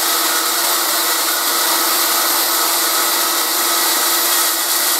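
Portable band saw running steadily while its blade cuts through a strip of stainless steel.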